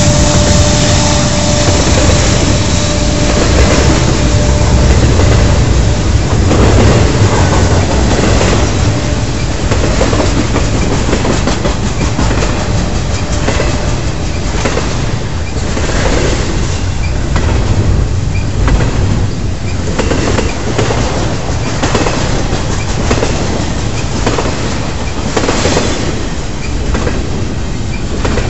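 Double-stack intermodal freight train rolling past: a steady heavy rumble with steel wheels clacking over the rail joints in regular groups about every two seconds. A faint steady tone fades out about five seconds in.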